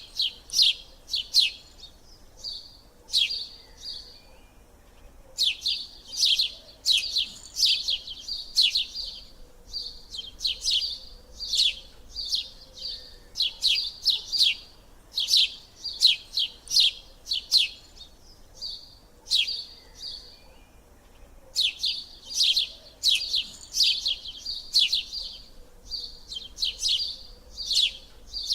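A small bird chirping rapidly: quick high chirps, several a second, in runs broken by short pauses.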